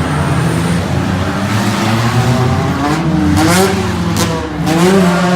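Several off-road derby cars' engines revving hard on a dirt track, their pitch rising and falling as the drivers accelerate and lift, with a couple of sharp rev-ups about three and five seconds in.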